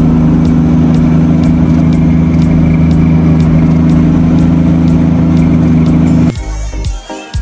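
Loud, steady engine hum of road traffic close by, with no change in pitch. It cuts off abruptly about six seconds in and gives way to music.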